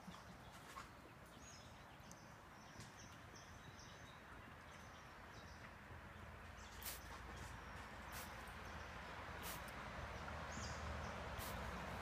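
Quiet outdoor ambience: faint, short, high bird chirps and a few soft sharp clicks over a low steady hiss that grows a little louder towards the end.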